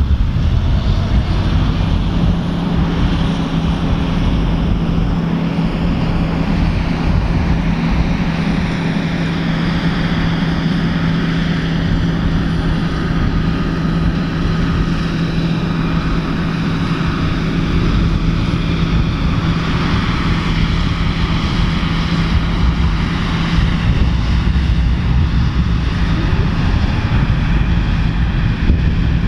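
John Deere 9750 STS combine running steadily while harvesting soybeans, its 8.1-litre turbo-diesel six giving a constant drone with a steady hum. A faint high-pitched whine comes in about a second in.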